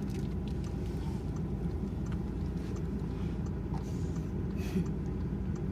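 Steady low background rumble, with a few faint clicks and one brief soft hiss about three-quarters of the way through.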